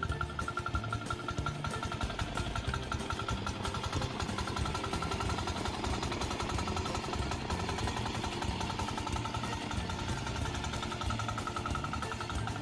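Small diesel engine of a walking hand tractor running steadily with a fast, even pulse, working under load through tall grass.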